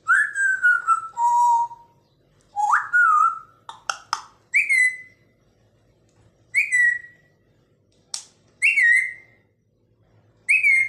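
African grey parrot whistling: a falling whistle into a lower held note, then a rising whistle, followed by a few sharp clicks and a short whistle that drops in pitch, repeated four times about two seconds apart.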